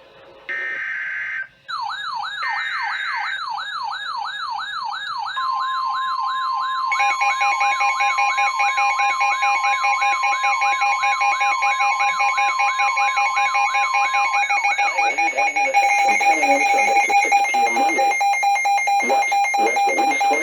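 NOAA Weather Radio Emergency Alert System alert: the last short data bursts of the SAME header, then the long warning alert tone held steady for about nine seconds. Over it, weather-alert receivers sound their own alarms: a fast up-and-down wailing siren, and from about seven seconds in a rapid pulsing beep that grows louder near the end.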